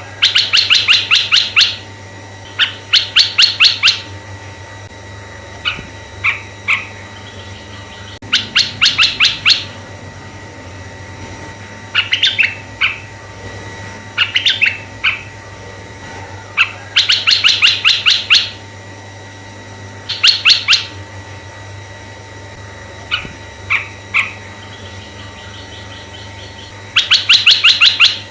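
Asian red-eyed bulbul singing: loud bursts of rapid, chattering notes, each burst about two seconds long and recurring every few seconds, with shorter, fainter groups of notes between them, over a steady low hum.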